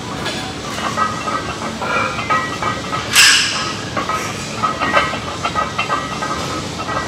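Busy gym ambience: a steady clattering din with scattered knocks and clicks, and one loud hissing burst about three seconds in.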